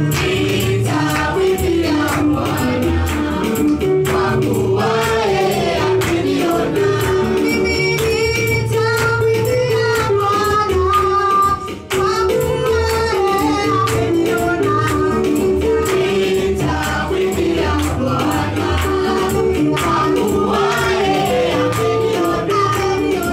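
Women singing a Swahili gospel praise song into handheld microphones, amplified over a PA, with backing music and steady percussion. The sound drops out for a moment about twelve seconds in.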